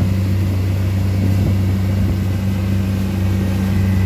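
Boat engine running steadily under way: a constant low drone with the hiss of the wake churning behind.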